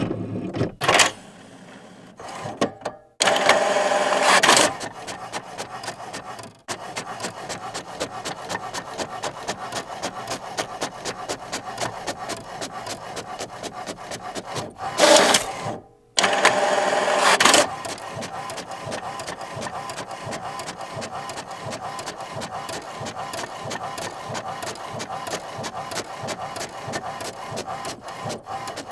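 Office printer mechanism working: loud short whirs of the feed motor, twice, and long runs of rapid, even clicking from the print mechanism.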